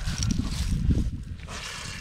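Water pouring out of a soaked child's boot and splattering onto slate gravel, over an uneven low rumble.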